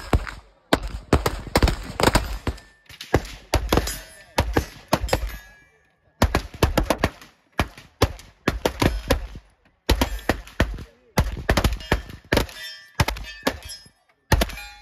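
Canik TTI Combat 9mm pistol being fired in rapid strings of shots, with short pauses between strings. The shots cut off suddenly near the end.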